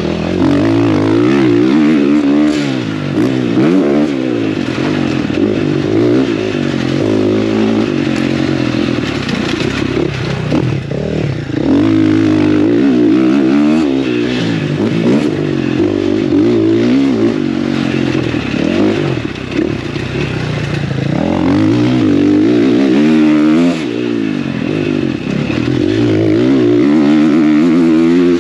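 Motocross bike engine being ridden hard on a dirt track, its pitch climbing and dropping again and again as the rider accelerates, shifts and backs off.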